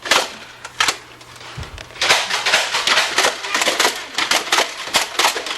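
Nerf Gatling gun firing in a toy-gun fight: a single sharp knock, then about two seconds in a fast, uneven run of clicks and clattering knocks.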